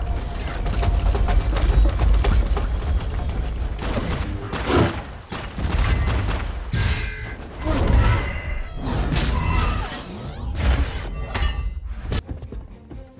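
Action-film battle soundtrack: a dense mix of crashes, booms and metallic impacts with music underneath. There is a run of sharp hits between about four and ten seconds in, and it thins out near the end.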